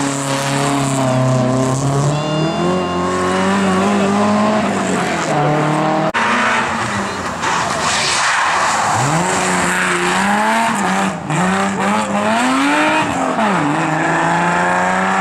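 Rally car engines being driven hard: the pitch climbs and drops again and again as the driver accelerates, lifts and shifts gear, with a change to another car's run about six seconds in.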